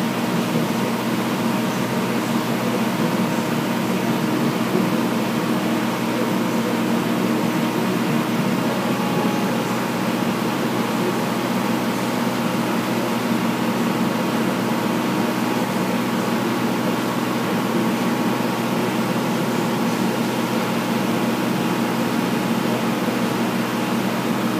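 A machine running at a steady speed, an even hum with no change in pitch.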